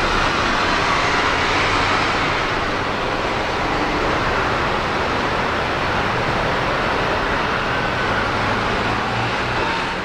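Airbus A350-900's two Rolls-Royce Trent XWB turbofans on final approach to landing: a steady jet engine rush as the airliner passes low toward touchdown, easing slightly near the end.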